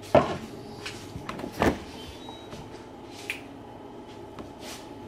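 Kitchen handling noises while coffee is made: two sharp knocks about a second and a half apart, then a few lighter clicks, as a cup and other items are picked up and set down.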